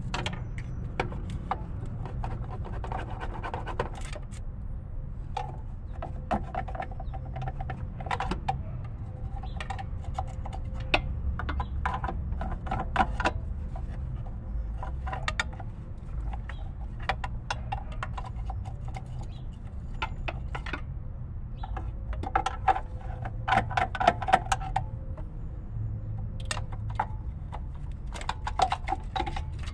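Irregular sharp metal clicks, taps and scrapes of a hand tool working at an engine's metal coolant connecting pipe to pry it loose, over a low steady rumble.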